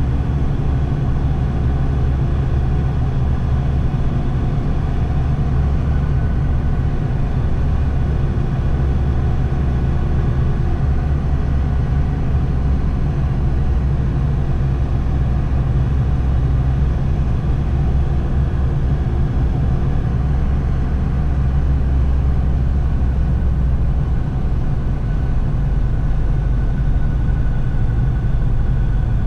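Steady low rumble of a car driving slowly through a road tunnel, heard from inside the cabin: engine and tyre noise.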